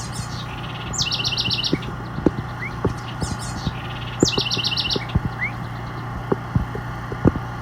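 A songbird sings twice, each time a short rapid run of repeated high notes. Under it runs a steady low engine hum, with scattered sharp clicks.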